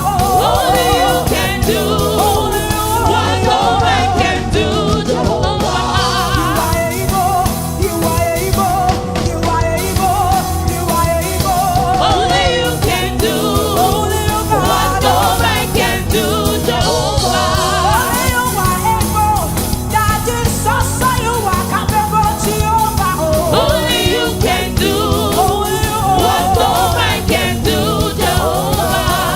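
Gospel song: singing with wavering, sustained notes over steady, loud band accompaniment.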